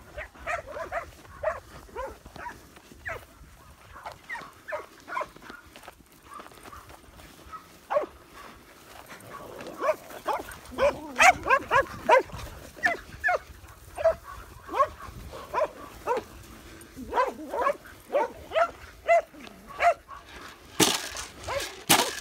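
Several Blue Lacy dogs barking in quick runs as they work cattle, busiest around the middle and again just before the end, with a short burst of rustling noise near the end.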